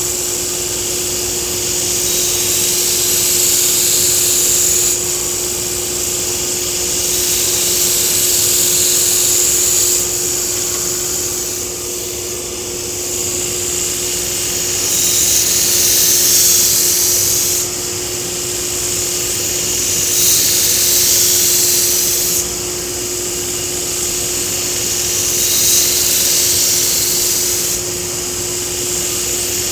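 Belt grinder running with a steady hum while a Takeda nakiri's steel blade is pressed against the moving abrasive belt in repeated passes, each pass a hissing grind lasting two to three seconds. The passes are thinning the blade's grind.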